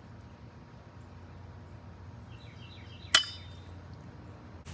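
A single sharp metallic clink with a brief high ring, about three seconds in, as the metal pole of a pool-skimmer net knocks against something; otherwise a low steady background hum.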